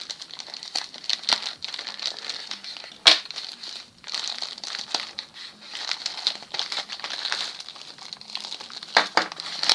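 Parcel packaging crinkling and crackling in irregular bursts as it is opened by hand and the contents unwrapped, with a sharper snap about three seconds in.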